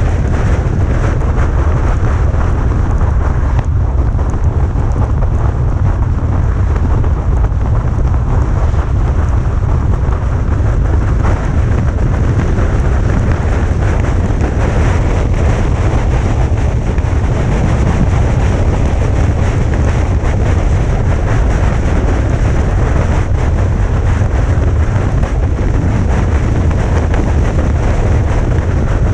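Steady rain-and-wind noise: a heavy low rumble with an even hiss over it, unchanging throughout.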